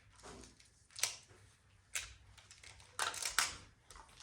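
Plastic magnetic building tiles clacking and snapping together as they are handled: sharp clicks about a second apart, with a quick cluster of them about three seconds in.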